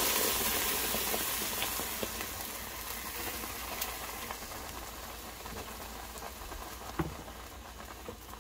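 Blended green mole sauce sizzling as it fries in hot oil in a pot, the hiss fading gradually. A single knock about seven seconds in.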